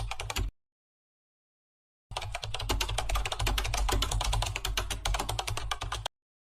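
Rapid typing on a computer keyboard: a dense run of fast key clicks lasting about four seconds, starting about two seconds in, after a short burst of clicking at the very start.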